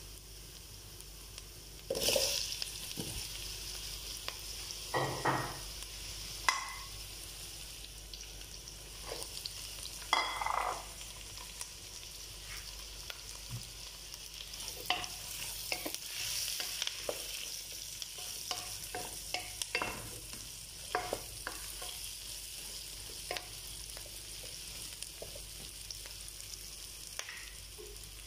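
Vegetables sautéing in oil in a non-stick pan: onion and garlic, then squash and green beans. A steady sizzle runs under irregular scrapes and knocks of a utensil stirring against the pan, with a louder burst about two seconds in.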